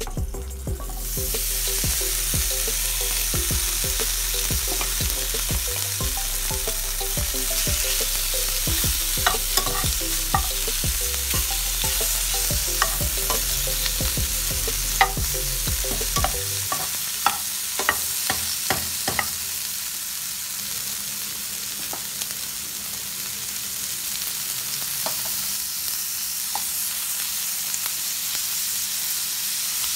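Shrimp sizzling in a hot skillet as they go in and are stirred, the spatula clicking and scraping against the pan. A low hum underneath cuts off about halfway through.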